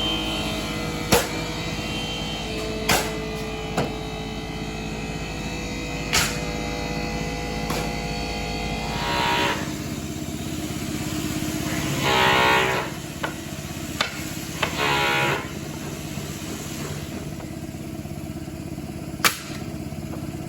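A machine engine runs steadily, with sharp knocks every few seconds. Two short pitched blasts sound about twelve and fifteen seconds in, each under a second long.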